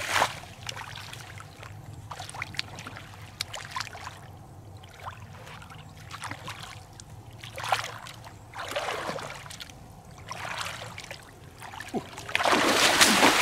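Shallow water splashing and sloshing as bare feet wade through flooded grass and hands grope in the water, in several separate splashes, with the longest and loudest one near the end.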